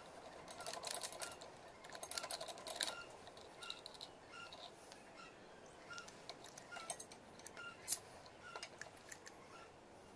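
Light metallic clicks and rattles from the aluminium crank handle of a hand-cranked meat grinder being handled, coming in two rattling runs in the first three seconds and as scattered clicks after, the sharpest near eight seconds. A faint short high peep repeats about twice a second throughout.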